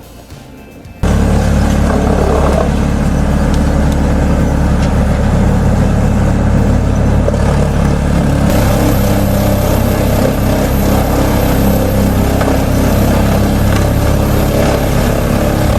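A large machine's engine running loudly and steadily, cutting in suddenly about a second in.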